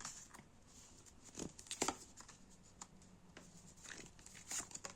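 Soft rustling and a few light clicks of tarot cards being handled and turned over on a table, with the strongest clicks about two seconds in and again near the end.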